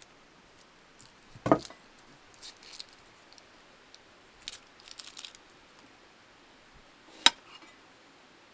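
Cooking utensils and food being handled during improvised food prep: two sharp knocks, about a second and a half in and again near the end, with light clinks and rustles between.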